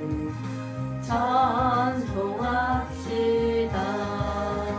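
Hymn accompaniment music with a wavering melody line over steady bass notes.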